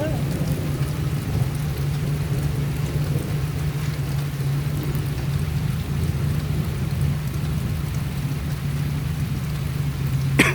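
Off-road vehicle's engine running at a steady low rumble under a constant noisy hiss, with one sharp knock near the end.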